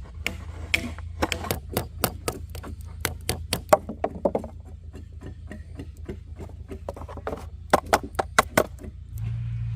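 Rapid, irregular knocks of tools striking wood, several a second, some much louder than others. A low steady hum comes in near the end.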